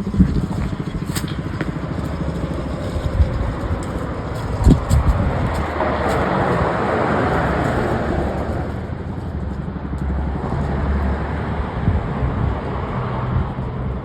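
Federal Signal STL-10 low-tone siren still turning after its test, a low, rapidly pulsing hum. A swell of rushing noise rises and fades in the middle, with a couple of sharp knocks.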